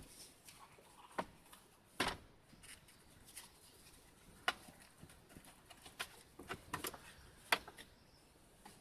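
Scattered light clicks and taps at irregular intervals, the sharpest about two, four and a half and seven and a half seconds in.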